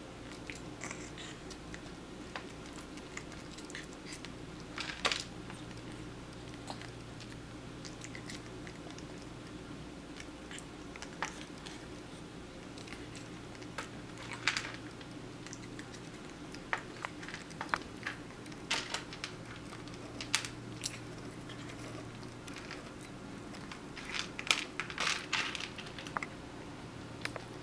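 Cat chewing and crunching food taken from chopsticks, with scattered light clicks and small clusters of taps from the chopsticks and the plastic bowl, over a steady low room hum.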